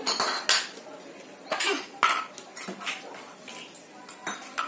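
Small plastic toy pots, dishes and utensils clinking and clattering as they are handled, in a series of irregular light knocks.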